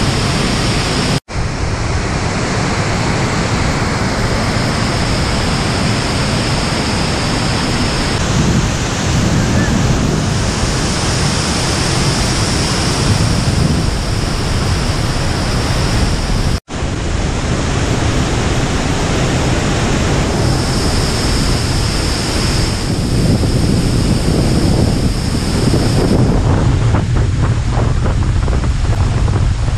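Steady rushing of Burgess Falls, a 136-foot waterfall, heard close up at its base, with spray and wind buffeting the microphone. The sound cuts out for an instant twice.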